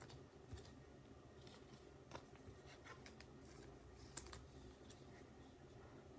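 Faint, scattered clicks and taps of trading cards being handled and laid down on a table, over quiet room hiss.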